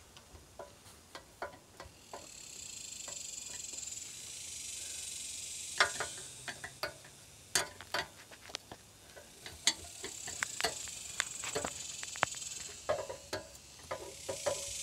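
Scattered sharp metal clicks and taps as a screwdriver and hands work the conduit fitting on a steel meter base. Behind them a high insect buzz swells in and fades several times.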